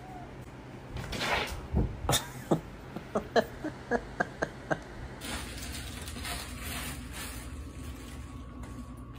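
A run of sharp knocks, about a dozen over three seconds, coming faster in the middle and fading out.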